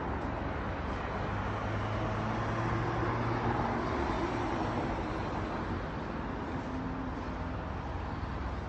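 Road traffic on the street below, a steady wash of tyre and engine noise, with a vehicle passing that swells and fades a few seconds in.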